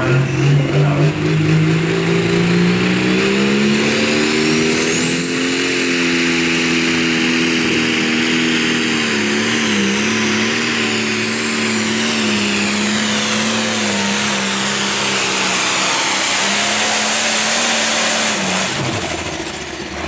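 International Harvester 1066 pulling tractor's turbocharged diesel under full throttle, pulling the sled down the track. Its pitch climbs over the first five seconds alongside a high rising whistle, holds high with small dips and wobbles, then drops sharply near the end as the throttle comes off at the end of the pull.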